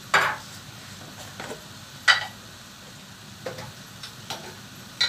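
Sharp clinks and knocks of kitchen utensils: two loud ones about two seconds apart and a few softer taps in between. Under them is a quiet, steady sizzle from the pan of squid and vegetables on the stove.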